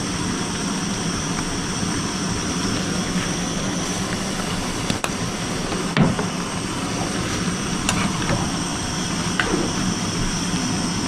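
Chicken stir fry cooking in a pan: a steady sizzle and hiss, with a few light clicks of a utensil against the pan.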